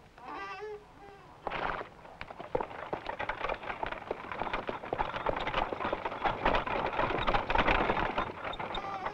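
Horse and wooden cart moving off: a dense clatter of hooves and wheels that builds from about two seconds in. Two short pitched calls come in the first two seconds.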